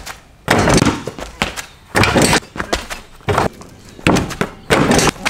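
A basketball thudding against a glass backboard and rim and bouncing on concrete: a series of loud, sudden thuds at uneven intervals, the biggest about half a second, two, four and nearly five seconds in.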